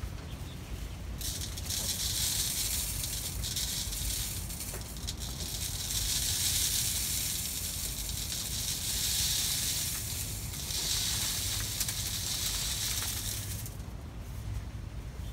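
Dry chicken feed pouring from a bucket through a funnel into an upright 2-inch PVC feeder tube: a rattling hiss that swells and eases several times, starting about a second in and stopping shortly before the end.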